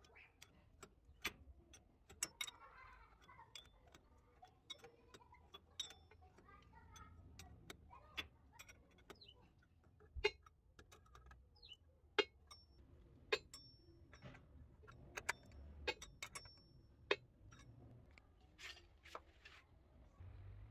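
Open-ended steel spanner clinking against chrome angle-valve fittings while the braided hose nuts are tightened: irregular sharp metal clicks, a few of them ringing briefly.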